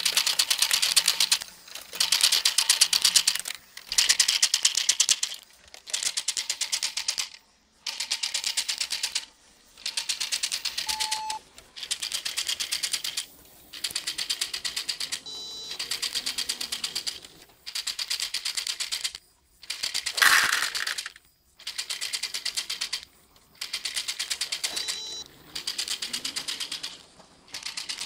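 LEGO Great Ball Contraption machinery running: rapid plastic clicking in bursts of about a second and a half, repeating about every two seconds. About twenty seconds in there is one louder clatter.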